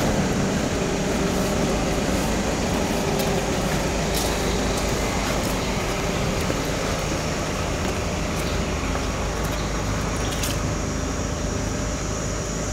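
Steady outdoor background noise with a low mechanical hum and a few faint clicks.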